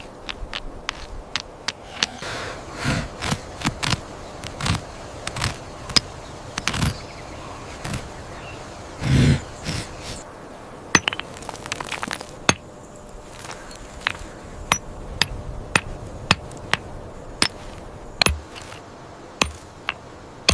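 A run of irregular sharp clicks and clinks, some of them ringing briefly, with a couple of low thumps mixed in; the clicks come in a loose, uneven rhythm.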